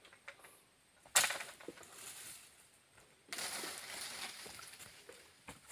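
A sharp crunching knock about a second in, then, from about three seconds in, a couple of seconds of scraping and rustling as the blade of a long harvesting pole pushes a cut oil palm fruit bunch through dry fronds and leaf litter.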